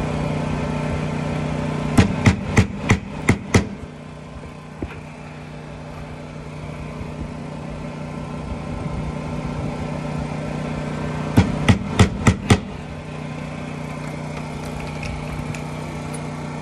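Hammer blows in two quick runs, six strikes and then five, about three a second, over a steady low mechanical hum.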